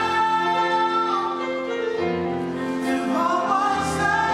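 Slow music with a singing voice holding long notes.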